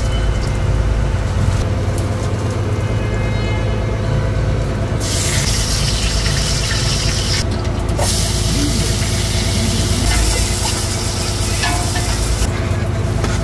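A boat's engine running steadily, with a loud hiss that sets in about five seconds in, drops out for a moment, and stops near the end.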